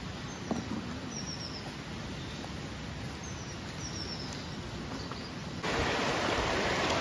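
Steady open-air background with a few short, high bird chirps, then about five and a half seconds in a sudden switch to the louder rushing of a shallow river flowing over stones.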